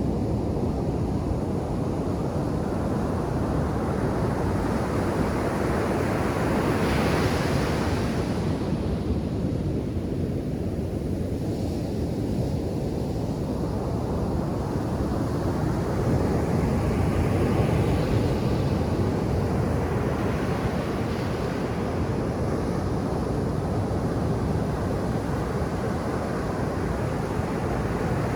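Ocean surf breaking on a sandy beach: a steady low rush of water, with waves crashing into a brighter hiss about a quarter of the way in, again around the middle and once more near the end.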